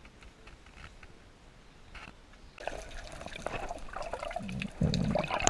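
Water sloshing and bubbling against an underwater camera as a snorkeler swims. It starts about halfway through and grows louder near the end, with a few low surges.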